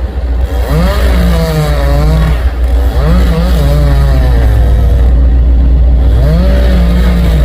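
Chainsaw running through a cut, its pitch rising and falling about every two seconds as the throttle varies, over a steady low engine drone.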